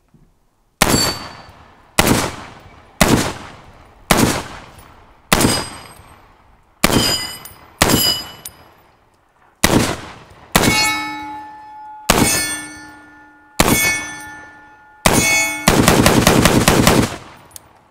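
Springfield Armory SAINT Victor .308 AR-10 pistol firing about a dozen single shots roughly a second apart, then a fast string of shots near the end as the magazine is dumped. Steel targets ring after the hits.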